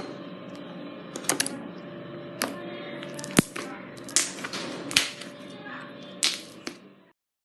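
Slime being pressed and played with, giving irregular sharp pops and clicks over a steady background hiss. The sound stops abruptly near the end.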